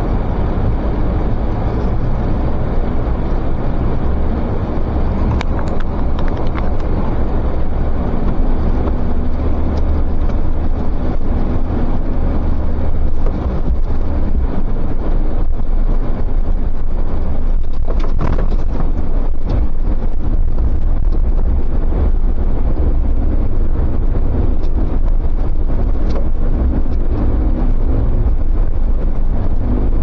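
Car driving on a snow-covered track: a steady low engine and road drone, with wind buffeting the microphone and a few faint knocks.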